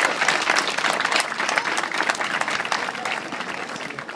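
An outdoor crowd applauding, with many hands clapping together. The clapping fades away near the end.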